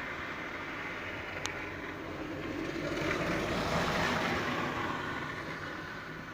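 A car passing on a snowy street: tyre and engine noise that swells about halfway through and then fades away.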